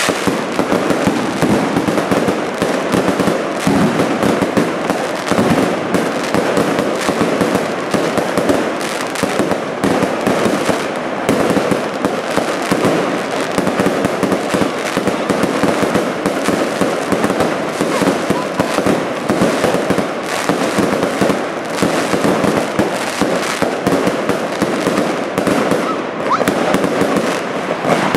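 A fireworks display: a dense barrage of aerial shells and rising comets going off in rapid succession, the bangs and crackles overlapping without a break.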